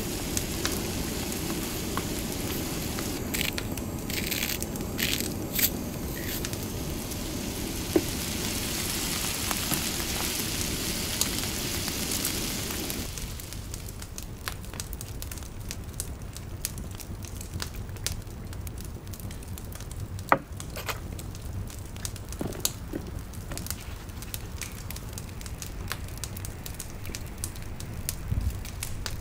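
Scrambled eggs sizzling in a frying pan on a canister camp stove, a steady hiss with a spatula scraping the pan a few times. About 13 seconds in, the sizzle stops and it goes quieter, leaving scattered light crackles and clicks.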